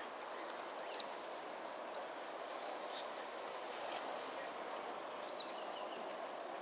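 A steady background hum with several short, high chirps that drop in pitch. The loudest chirp comes about a second in, and fainter ones follow every second or so.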